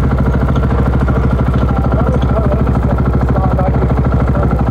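Supermoto motorcycle engine idling steadily, with an even, unchanging beat of firing pulses.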